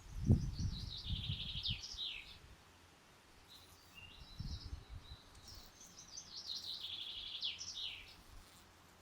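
A songbird singing two trilled phrases, each about two and a half seconds long and falling in pitch, the first at the start and the second from about five and a half seconds in. A low rumble is heard under the first phrase and again briefly around the middle.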